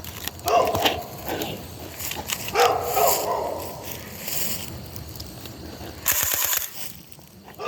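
A dog barking several times, then about six seconds in a short, rapid burst of clicking shots from an electric Orbeez gel-bead gun.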